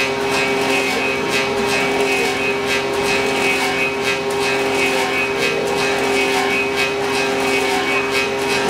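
Clog copying lathe running: a steady motor hum with a regular rasp as the cutters carve a wooden clog blank.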